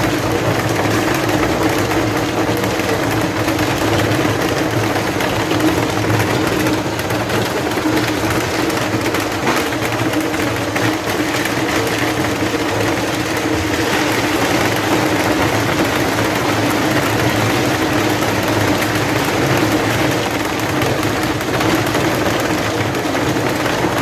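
Tube ice machine running: a steady, loud machine hum with a constant low tone over a dense whirring noise.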